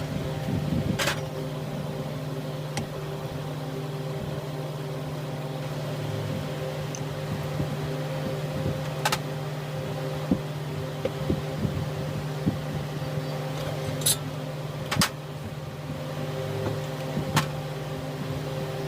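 Steady mechanical hum, with a few sharp clicks and knocks scattered through it.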